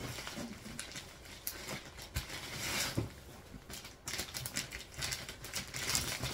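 Packaging being opened by hand: irregular rustling and scraping with scattered light clicks and taps.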